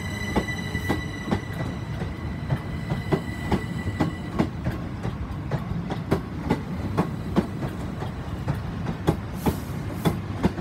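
Two coupled Class 377 Electrostar electric multiple units pulling out of the station: a steady electric traction whine that fades away about four seconds in, and wheels clicking over rail joints about twice a second as the carriages roll past.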